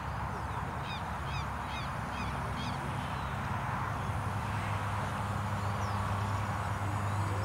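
A bird calling a quick series of short high chirps between about one and three seconds in, over steady open-air noise and a low hum that grows a little louder in the second half.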